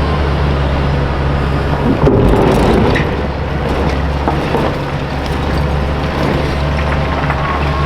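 Volvo EC480EHR excavator's diesel engine running steadily under a constant low hum, with a louder rough, crashing stretch lasting about a second, about two seconds in, as crushed concrete is loaded into a dump truck.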